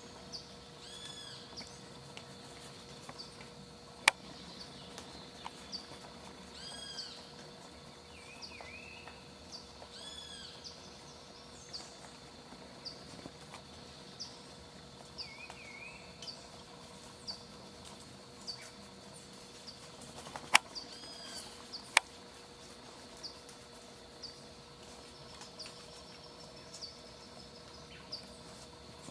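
Background birdsong: several birds give arching and warbling calls now and then over a short high chirp repeated about once a second, with a faint steady hum underneath. Three sharp clicks stand out as the loudest sounds, one about four seconds in and two close together near two-thirds of the way through.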